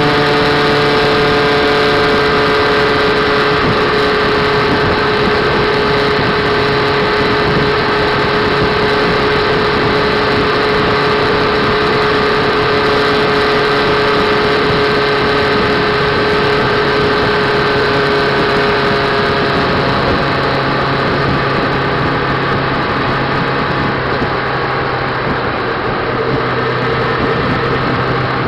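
Motorcycle engine running steadily at road speed with wind noise, heard from the rider's seat behind the fairing. About twenty seconds in, the engine note drops and gets slightly quieter.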